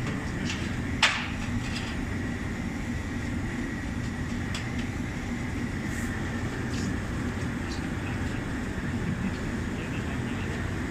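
Steady low rumble of bell-foundry machinery, with a single sharp click about a second in and a few faint ticks after it.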